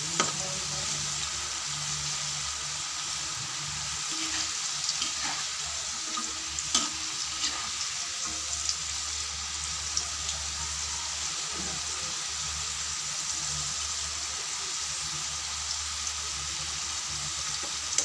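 Kamote (sweet potato) sticks frying in oil and melted sugar in a wok, a steady sizzle, with a few short clicks and scrapes from the spatula stirring them.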